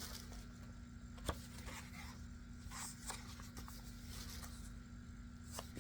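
Faint rustling of book pages being handled and turned, with a single light tap about a second in.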